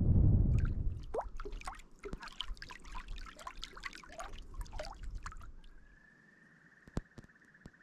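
Wind buffeting the microphone, then small waves lapping and gurgling among shore stones, with many little clicks and plops. In the last few seconds a steady high whirring trill sounds, with one sharp click partway through.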